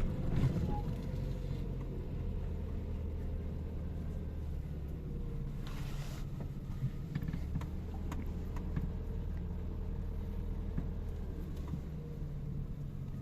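A motor vehicle's engine running steadily, a low hum with a brief rushing noise about six seconds in.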